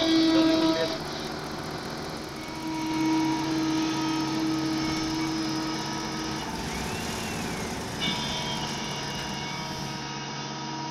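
Machine engine running steadily with a whine that holds for a few seconds in the middle.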